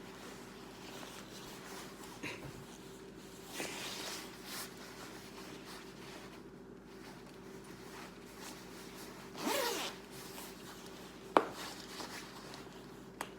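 Clothing being handled: rustling fabric and a zipper drawn up in a longer rasp about two-thirds of the way in, then a sharp click. A low steady hum sits underneath.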